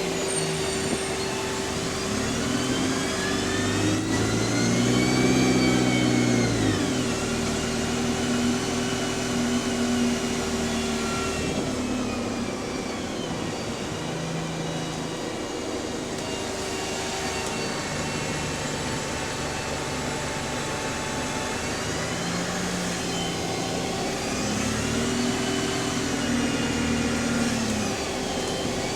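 Double-decker bus engine and Voith automatic gearbox heard from on board, pulling away and climbing in pitch with a gearbox whine, then easing off. It picks up and falls away again in the same way near the end.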